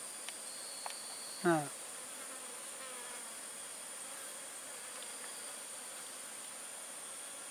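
Insects chirring in a steady, continuous high-pitched drone.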